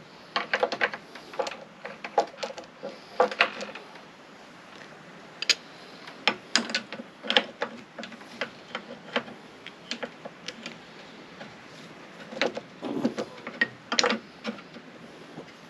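Hand tools working on metal: irregular clicks, clinks and clanks, as in tightening a hydraulic fitting with a wrench.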